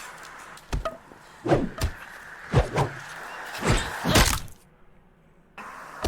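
A rapid run of whacks and thuds from a staged fight, about seven hits in under four seconds. The sound cuts out suddenly for about a second near the end, then the background returns.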